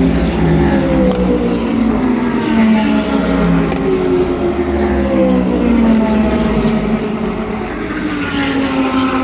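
Several endurance race cars passing in quick succession at full racing speed, their overlapping engine notes sweeping down in pitch as each goes by, with gear-change rises in between.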